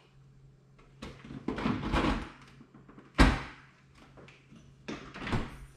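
Samsung refrigerator door and ice compartment being handled: a scraping movement about a second in, a sharp knock just past three seconds, and a softer thud near the end.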